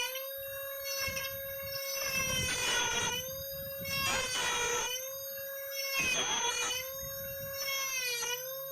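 Small high-speed rotary carving tool cutting grooves in wood, running with a steady whine. Its pitch sags each time the bit is pressed into the wood, with a rough grinding rasp, about every two seconds.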